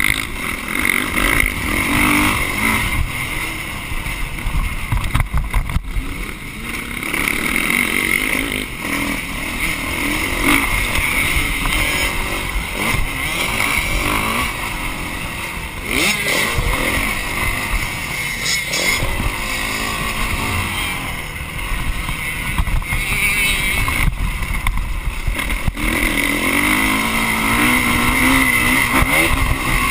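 Motocross dirt bike engine revving up and down as it rides the track, the pitch rising and falling with throttle and gear changes, heard from a camera on the moving bike.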